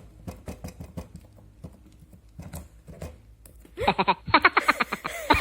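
Clear slime being squeezed and kneaded by hand, making irregular wet clicks and pops. About four seconds in, a woman starts laughing.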